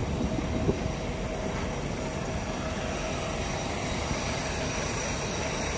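Airport apron machinery noise: a steady low rumble with a constant faint whine, and a few light knocks in the first second.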